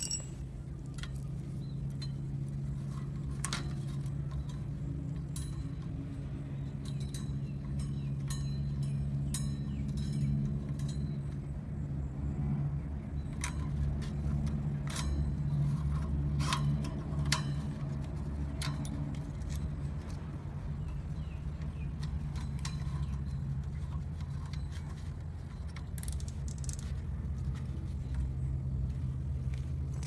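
Light metallic clicks and clinks at irregular intervals as the wire fan guard, a wire and cable ties are handled, over a steady low hum.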